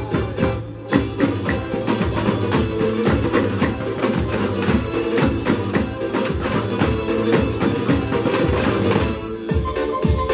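Adyghe dance tune played by a percussion noise orchestra, tambourines jingling and struck over a steady repeating bass beat. The jingling drops out briefly near the start and again just before the end.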